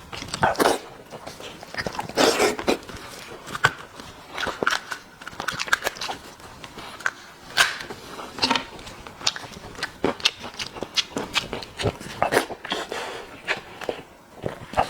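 Close-miked eating: irregular bites, chewing and wet lip smacks on spicy meat, with short sharp clicks and crunches.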